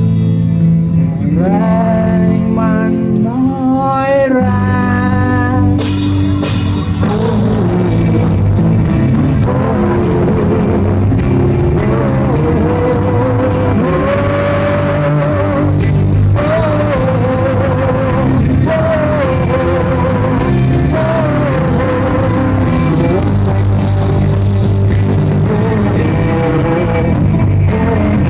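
Live rock band playing: electric bass, electric guitar and drum kit, with a wavering lead melody on top. The opening bars are lighter, with rising stepped runs, and about six seconds in a cymbal crash brings the full band in.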